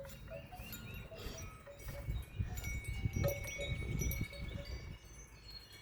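Wind chimes ringing in gusty wind, a scatter of clear high tones, some held for a second or more, over wind rumbling on the microphone.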